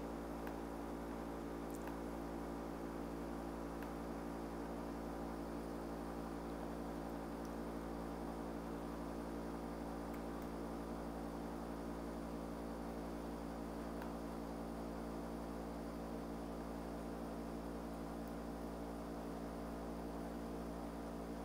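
Steady low electrical hum with a faint hiss underneath, the background noise of the recording setup, with a couple of very faint clicks.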